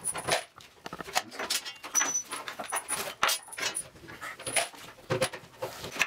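Hand screwdriver turning screws through an aluminium rail into plywood, with irregular clicks, scrapes and the rattle of loose screws being handled.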